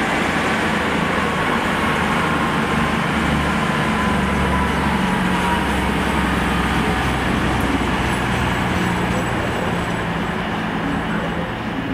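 Class 220 Voyager diesel-electric train pulling away, its underfloor diesel engines humming low under steady wheel and running noise. A faint falling whine comes and goes in the first half, and the sound eases slightly near the end as the train draws off.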